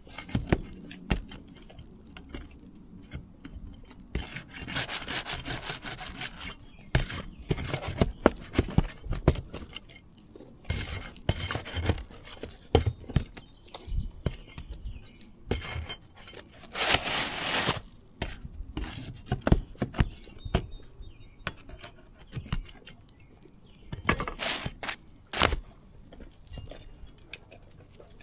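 Asphalt roof shingles being pried up and unsealed: irregular scraping and rasping as the sealed shingles are worked loose, broken by hard clicks and knocks, with a few longer scrapes of a second or two.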